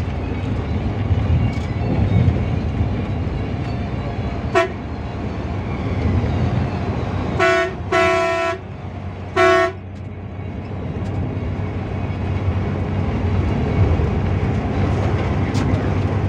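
Bus engine running, heard from inside the cabin while on the move. A horn sounds once briefly about four and a half seconds in, then three more blasts between about seven and a half and ten seconds in, the middle one the longest.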